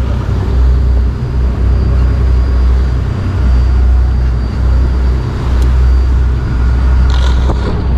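Fishing boat's engines running steadily underway, a deep continuous drone, with the rush of water and wind over it.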